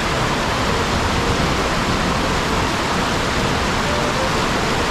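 Heavy rain falling together with a stream rushing over a sloping rock bed: a loud, steady, unbroken rush of water noise.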